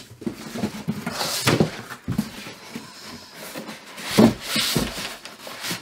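Cardboard box and packing material being handled as a soundbar is lifted out: irregular rustling and scraping with a few dull knocks, loudest a little past the middle.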